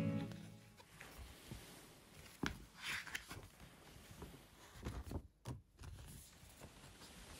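Soft rustling and light tapping of glossy paper and card as an album's pages and poster are handled, with a sharper tap about two and a half seconds in.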